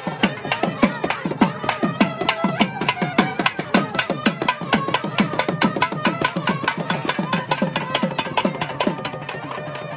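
Festival drumming for a kavadi procession: fast, even drum strokes, about five a second, each with a low pitch that drops. A wavering melody runs above them and fades out near the end.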